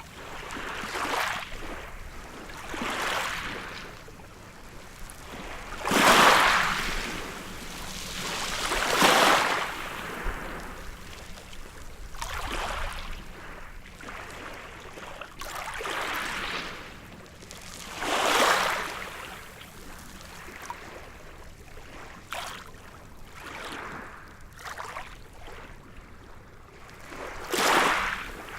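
Waves breaking and washing up on a beach, each one a swell of surf noise rising and falling away every few seconds. The loudest waves come about six and nine seconds in, with another strong one near the end.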